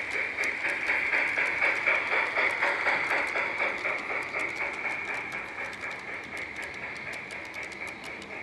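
Large-scale model steam locomotive and its narrow-gauge train running past on garden railway track. It makes a rapid rhythmic running sound that is loudest early and fades as the train moves away, over a steady high-pitched hum.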